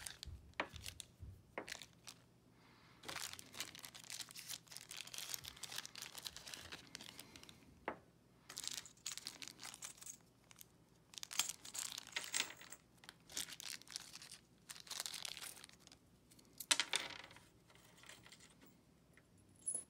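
Small plastic hardware bags crinkling in irregular bursts as bolts and washers are taken out of them, with a few sharp clicks of metal bolts and washers being set down on a pegboard.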